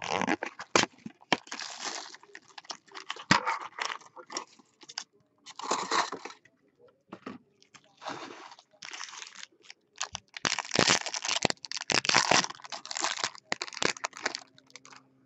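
A cardboard trading-card box being opened by hand, then foil card packs handled and torn open, in irregular bursts of crinkling and tearing with sharp clicks between short pauses.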